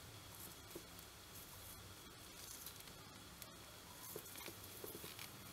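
Faint handling sounds of a knitting needle and yarn as stitches are picked up along a knitted edge: a soft rustle with a few light ticks.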